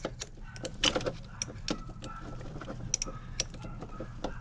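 A box-end wrench tightening the clamp bolt on a new battery terminal end, giving a run of short, irregular metallic clicks, a few a second.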